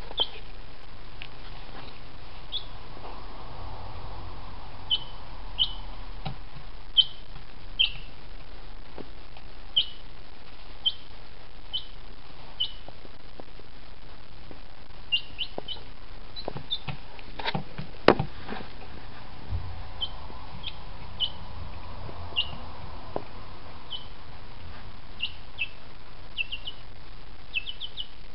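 Chicken chick peeping: short, high cheeps that fall in pitch, at irregular intervals, with quick runs of two to four near the end. A few sharp clicks, the loudest about eighteen seconds in, over a steady background hiss.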